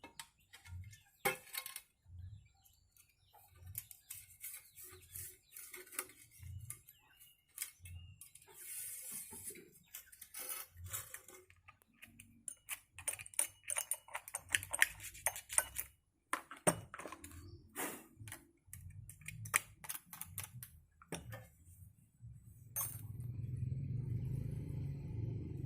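Scattered clicks, light knocks and metallic rattles of close handling, with short low thumps. About 23 s in, a steady low rumble starts and keeps going.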